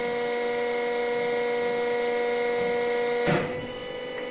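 Hydraulic pump of a Durma HAP 2580 80-ton CNC press brake whining steadily under load as the ram bends 1.5 mm sheet steel. About three seconds in there is a sharp clunk, and after it the whine carries on quieter.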